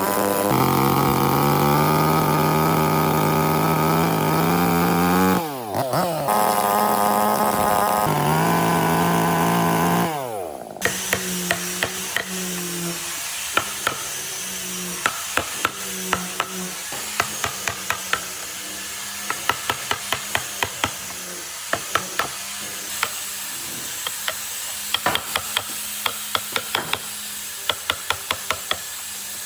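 An electric power tool runs at speed, spins down about five seconds in, starts again and spins down a second time. After that come many light, irregular clicks and taps over a low steady hum.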